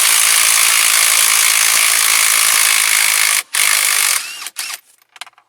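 Cordless power tool running steadily for about three and a half seconds, spinning out the 22 mm steering wheel mounting bolt, then a short second burst after a brief stop. A few light clicks follow near the end.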